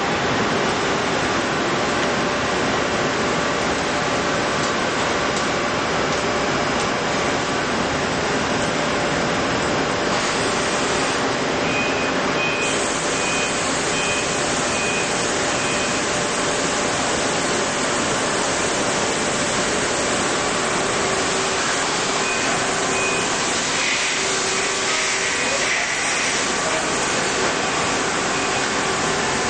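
Multi-tasking CNC lathe running, a steady loud hiss and hum of machinery and coolant. A run of about six short high beeps comes a little before the middle, and two more later on.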